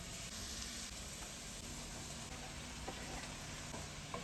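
Vegetables sizzling as they sauté in a skillet, stirred with a wooden spatula, with a couple of light knocks of the spatula against the pan.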